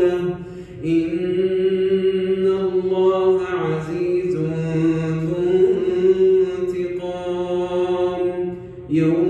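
A man chanting Quran recitation in prayer, drawing out long melodic held notes, with short breath pauses about half a second in and near the end.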